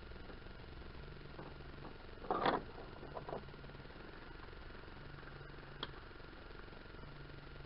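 A short metallic clatter about two seconds in, then a few light clicks, as hand tools and metal parts are handled. A low steady hum runs underneath.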